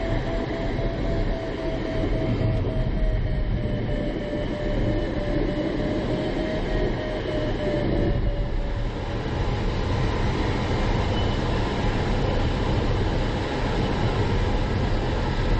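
Steady rushing airflow noise in the cockpit of an ASW 20B sailplane in flight, with no engine. A faint steady tone drifts slightly in pitch and stops about eight seconds in.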